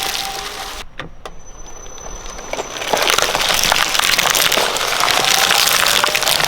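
Shredder blades crushing material with a dense run of crackles, snaps and breaks; it drops away about a second in and builds back up louder around three seconds in.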